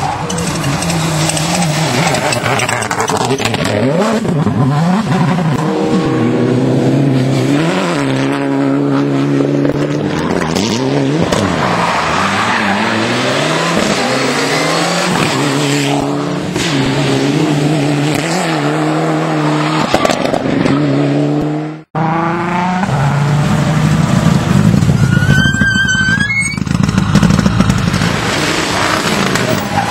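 Rally car engine revving hard through the gears, its pitch climbing and then dropping at each shift. The sound cuts out for an instant about 22 seconds in, then the engine runs on hard, with a brief high squeal a few seconds later.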